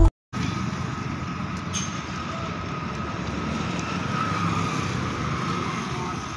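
Steady street and traffic noise of vehicle engines running at a roadside bus stop, starting just after a brief gap of silence.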